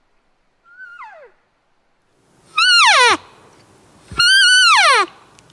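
Elk bugle call blown by a hunter: a fainter bugle about a second in, then two loud ones, each a high whistle that holds briefly and then drops steeply in pitch.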